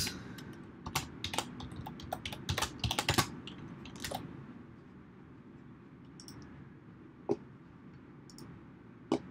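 Typing on a computer keyboard: a quick run of keystrokes for about four seconds, then two lone clicks further apart.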